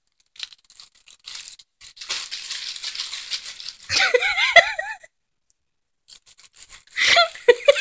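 Light rustling and rattling handling noise as a small camcorder is turned over in the hands, with a brief wavering voice-like sound about four seconds in. The sound then drops out to dead silence for about a second.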